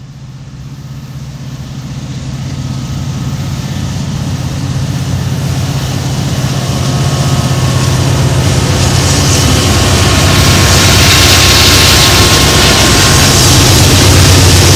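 Union Pacific diesel freight locomotives, an EMD SD70ACe leading a GE AC44CW, approaching and passing while they work hard hauling a loaded rock train. The deep engine drone grows steadily louder, and a rising rushing noise joins it in the second half as the locomotives draw level.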